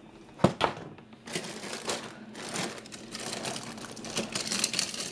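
Handling noise: rustling and crinkling as things are handled and moved, with two sharp knocks about half a second in.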